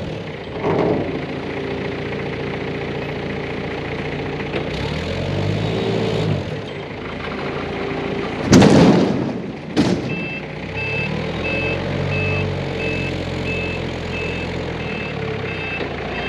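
A Cat loader's diesel engine works, its pitch rising and falling as it revs. About eight and a half seconds in there is a loud crash and crunch, then a second sharp crack a second later: the brittle plastic cone tanks breaking and crushing. After that the loader's reversing alarm beeps steadily, a little under two beeps a second.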